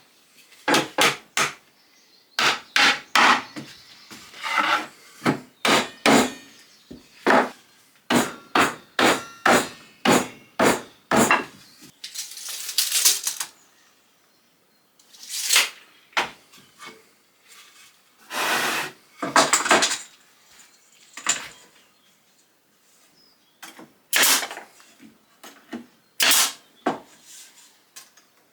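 Hammer blows on the wooden parts of a beehive super as it is assembled: sharp knocks in irregular runs of two to four, with pauses between runs. Two longer scraping sounds of wood on wood come about twelve and eighteen seconds in.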